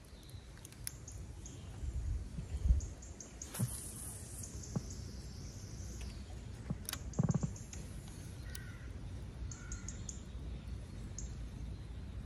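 Birds calling over a low rumbling outdoor background, with a few brief knocks and clicks.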